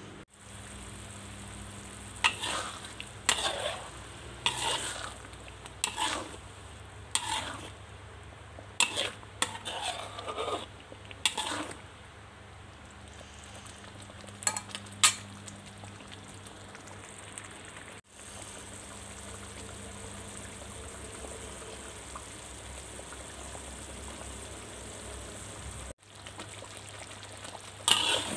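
Blended chili paste sizzling as it fries in hot oil in a metal wok, with a spatula scraping and stirring it in irregular strokes through the first half and again near the end.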